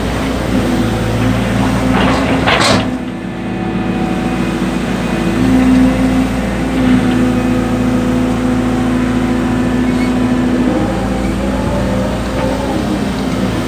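Excavator diesel engine running under load as it digs soil, its note dipping briefly and then climbing again about five seconds in. A short rising hiss comes about two and a half seconds in.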